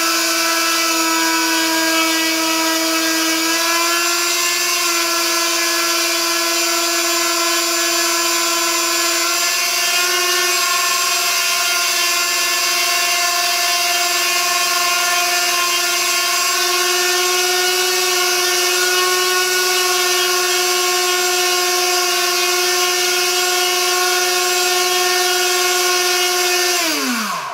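DYS 1806 2300 kV brushless motor spinning a Gemfan 6x4.5 propeller in a static thrust test: a steady motor whine and prop buzz that steps up in pitch three times as the throttle is raised, then winds down quickly in a falling whine when the throttle is cut at the very end.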